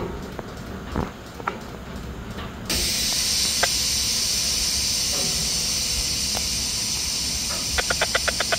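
Air hissing steadily from a stopped freight train's air brake system, starting suddenly about three seconds in. A few light knocks come before it, and a quick run of clicks near the end.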